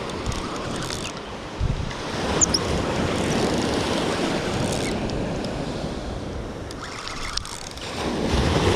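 Ocean surf washing onto a beach, with wind buffeting the microphone; the wash swells a couple of seconds in, eases, and swells again near the end.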